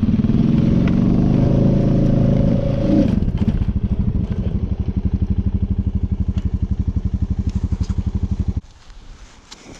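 ATV (four-wheeler) engine running at high revs, dropping to an even, pulsing idle about three seconds in, then switched off abruptly near the end. The machine is overheating after working through deep snow.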